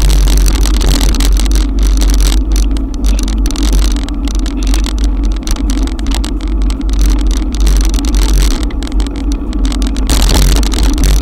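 Wind buffeting the microphone of a bike-mounted action camera while riding in heavy rain, with a steady hiss of rain and wet tyres on the road underneath.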